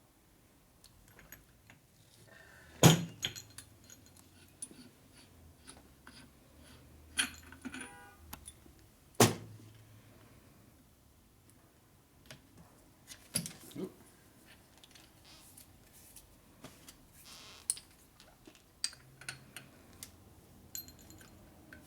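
Scattered metallic clicks and clinks as a fork seal driving tool is handled and fitted around a motorcycle fork leg. Two sharp metal knocks, about three and nine seconds in, are the loudest.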